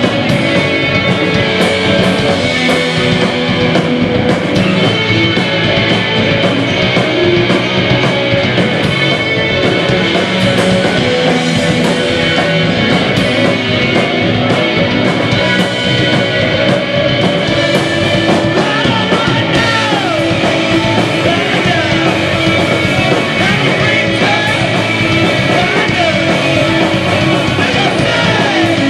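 Postpunk band playing live: electric guitars, bass guitar and drum kit, with a voice singing near the end.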